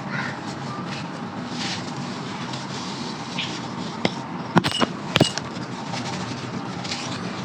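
Crunchy dried sand-clay crumbling in a clay pot: scattered soft crackles, then a quick cluster of sharp snaps about four to five seconds in, over a steady background hiss.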